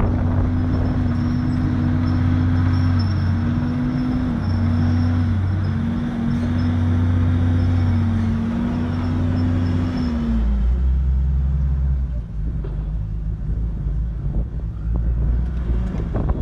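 Komatsu D51PX crawler bulldozer's diesel engine running under load while pushing soil, its pitch sagging briefly a few times. About ten seconds in, the engine note drops to a lower pitch.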